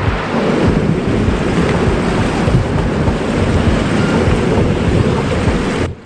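Rushing, churning whitewater of a river rapid around an inflatable raft, heavy and steady, mixed with wind on the microphone. It cuts off abruptly near the end.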